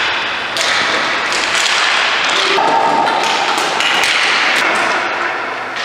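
Ball hockey play: repeated thuds and taps of sticks and ball on the rink floor and boards, with a steady tone lasting about a second midway.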